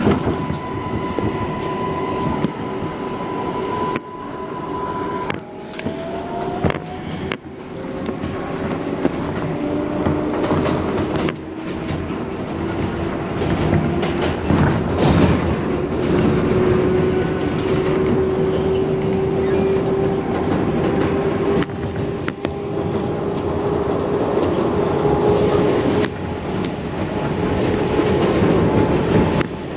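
R142A subway train pulling out and gathering speed on elevated track: its traction motors give a steady high whine for the first few seconds, then whine tones that climb slowly in pitch as it accelerates, over a steady rumble with wheels clicking over rail joints.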